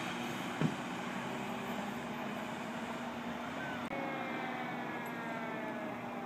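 Distant city traffic noise with a steady low hum, and a single thump about half a second in. From about two-thirds of the way through, a distant emergency siren sounds faintly, its tone slowly falling in pitch.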